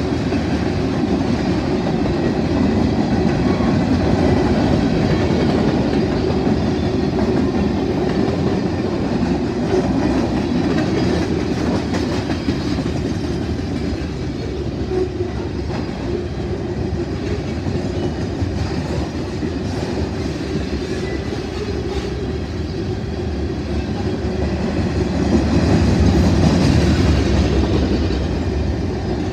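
Freight train cars rolling past: steady noise of steel wheels running on the rails, growing louder for a few seconds near the end.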